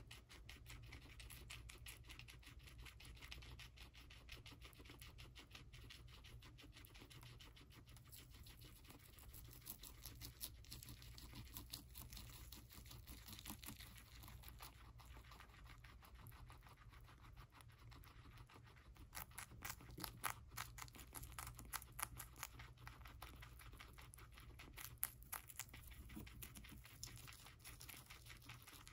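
Guinea pigs chewing celery: a quick, steady run of crisp little crunches and nibbles. Several louder bites come in the later half.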